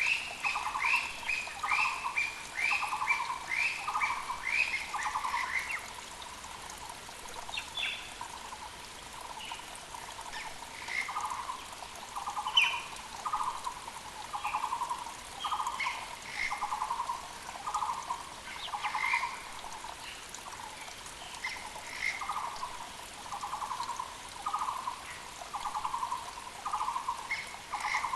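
Müller's barbets (Taiwan barbets) calling: a long run of evenly repeated notes, about one and a half a second, with a second bird's quicker, higher run of notes over them for the first six seconds. The repeated calls break off for a few seconds and resume about eleven seconds in, with scattered higher chirps from other birds over the steady sound of a mountain creek.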